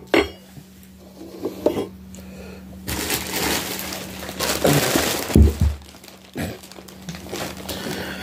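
Plastic packaging rustling and crinkling as it is handled and pulled about, loudest through the middle, with a few sharp knocks and dull thumps. A faint steady low hum sits underneath.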